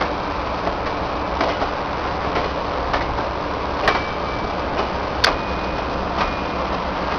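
GO Transit bilevel passenger coaches rolling past: a steady rail rumble with irregular sharp clicks as the wheels cross rail joints, and twice a brief faint high squeal from the wheels.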